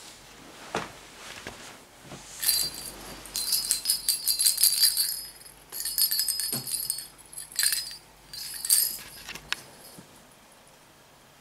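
Bell inside a small plastic cat-toy ball jingling in several short bursts as a kitten bats it across a wooden floor, with a couple of sharp knocks as it strikes the floor.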